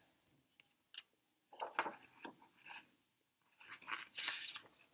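Paper picture book being handled and its pages turned: a faint tick, then short quiet rustles about two seconds in and a longer rustle around four seconds in.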